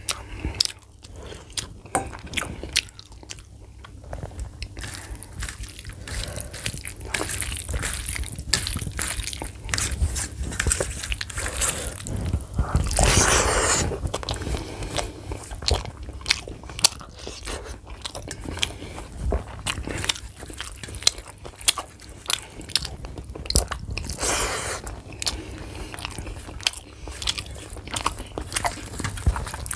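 Close-miked eating of rice with chicken liver curry by hand: chewing and many sharp wet mouth clicks, with the squelch of fingers mixing curry into rice on a steel plate. There is a louder stretch about thirteen seconds in and a shorter one near twenty-four seconds.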